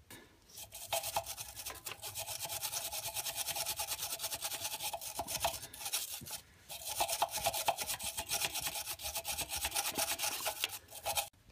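Hand wire brush scrubbing rusty steel at a motor-mount bolt on the engine block in fast back-and-forth strokes, cleaning the surface down for a good ground connection. The scrubbing pauses briefly about six seconds in, then resumes and stops just before the end.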